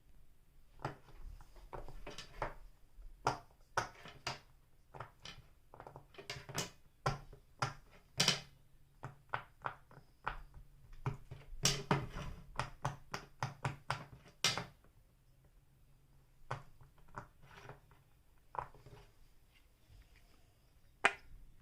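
Silicone mini pop-it fidget toy being pressed, its bubbles popping in a run of irregular soft clicks, thinning out in the last few seconds.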